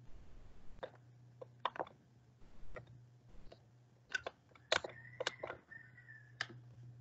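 Faint, irregular clicks from a computer keyboard and mouse, about nine in all, over a low steady hum. A faint high steady tone holds for about a second and a half in the second half.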